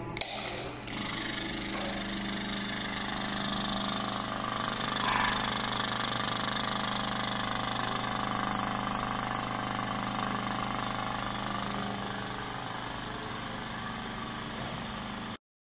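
Bearing noise tester's spindle running steadily, spinning a fishing reel bearing for a noise check, with a sharp click just after the start as the part is fitted.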